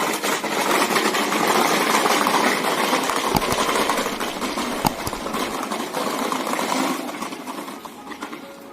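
A small motor running with a steady mechanical whirr that fades out about seven seconds in.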